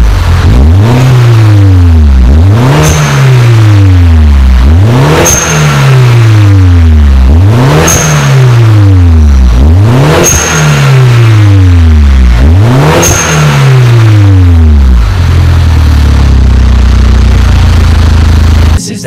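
Mini Cooper S Coupe R58's turbocharged 1.6-litre four-cylinder revved six times through an aftermarket downpipe with catalytic converter, each rev climbing quickly and falling away slowly, with a brief high chirp at the top of each. Near the end it settles to a steady idle.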